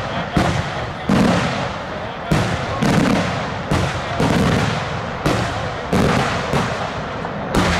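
Daylight fireworks show: aerial shells bursting in quick succession, about a dozen sharp bangs at uneven intervals, one or two a second, each followed by a short rolling rumble.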